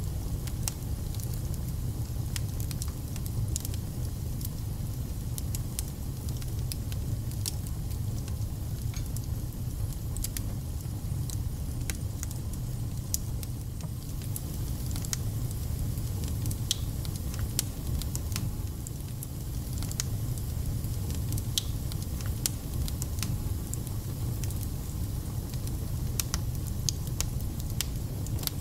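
Wood fire burning in a fireplace: a steady low rumble with frequent sharp crackles and spitting pops.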